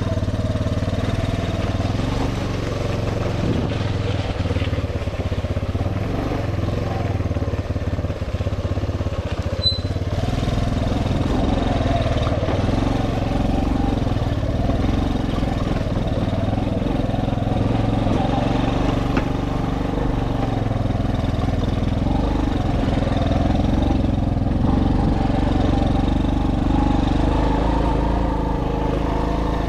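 Suzuki Djebel 125's single-cylinder four-stroke engine running as the bike is ridden, its note picking up a little about ten seconds in.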